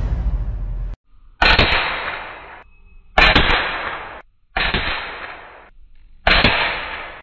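Four single shots from a Predator Galaxy Tactical PCP air rifle, each a sharp crack trailing off over about a second, then cut short. Music plays before the first shot and stops about a second in.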